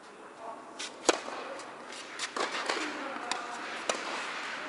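Tennis rally in an indoor hall: a sharp serve struck about a second in, then a string of racket hits and ball bounces at uneven intervals, with the hall's echo between them.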